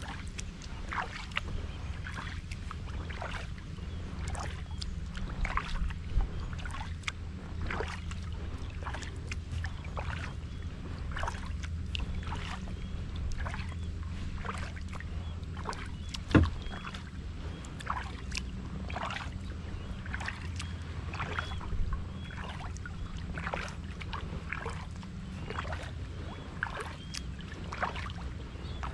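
Kayak paddle strokes splashing into calm water at about one stroke a second, over a steady low rumble. A single sharp knock comes about sixteen seconds in.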